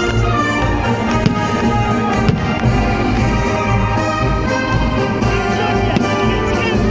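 Orchestral music with brass and strings playing an instrumental passage, with two sharp bangs about a second and about two seconds in, like fireworks going off under the music.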